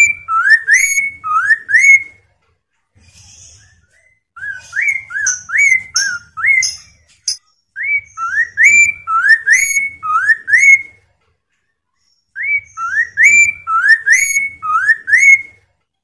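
Chestnut-capped laughingthrush (poksay mandarin) singing loud phrases of rising whistled notes. It gives four runs of about five to seven quick upslurred notes each, with short pauses between them.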